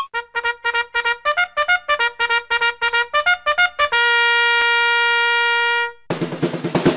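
Upbeat intro music: a quick run of short staccato notes, then one long held note, and about six seconds in drums and a fuller band come in.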